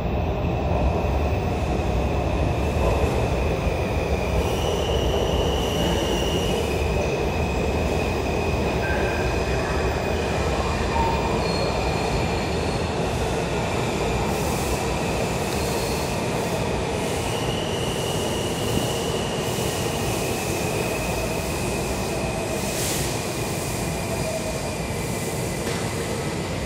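Washington Metro 3000-series subway trains entering an underground station: a steady, loud rumble of the railcars with high-pitched wheel squeal that shifts in pitch every few seconds.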